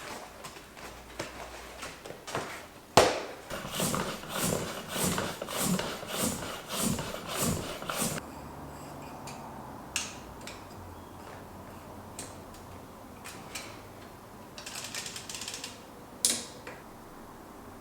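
Hand work on bicycle parts: a sharp metallic click about three seconds in, then about ten rhythmic strokes, roughly two a second, then scattered single clicks and a short rustle.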